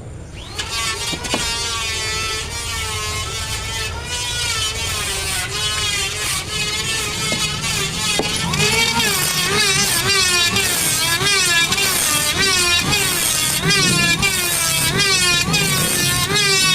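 Electric woodworking machine running with a loud whine whose pitch wavers and dips again and again, as a motor does when it bogs under the load of a cut; the dips come more often and deeper from about halfway through.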